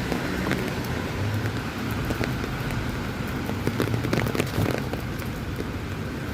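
Rain falling, with many scattered sharp drop ticks over a steady hiss and a low rumble underneath.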